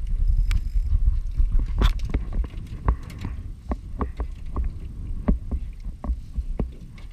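Wind buffeting the microphone as a low rumble, with irregular sharp slaps and knocks against an aluminum fishing boat's hull as choppy water hits it, about a dozen spread through, the rumble easing near the end.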